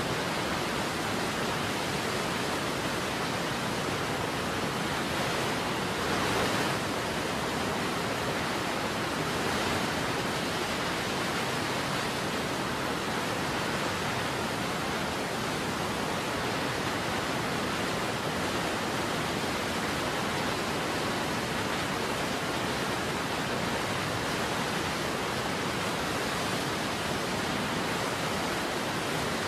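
Waterfall: a steady rush of falling water, swelling slightly about six seconds in.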